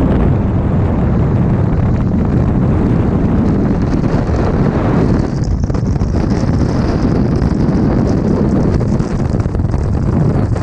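Freefall wind rushing over a helmet-mounted camera's microphone, loud and steady. About halfway through, a faint high whistle joins in.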